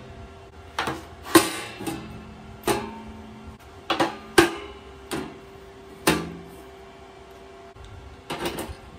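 Sharp metallic clacks as magnetic welding squares are set onto a steel welding table and against a galvanized sheet-metal box, about nine knocks spaced unevenly.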